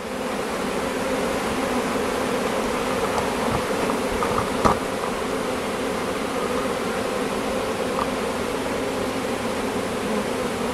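Steady buzzing hum of a honeybee swarm massed at the front of a hive as the bees make their way inside.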